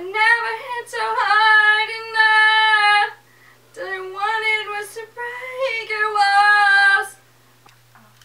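A woman's voice singing unaccompanied, with no instruments behind it: two sung phrases of about three seconds each with a short break between, stopping about seven seconds in.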